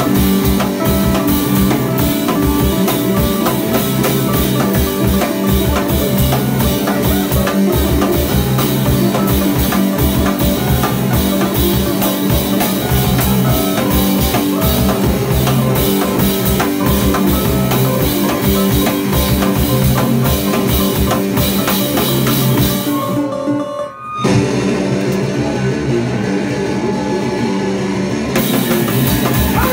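Live punk band playing an instrumental passage: drum kit pounding with fast hits under loud electric guitars. The band drops out for a moment about three-quarters of the way through, then comes straight back in.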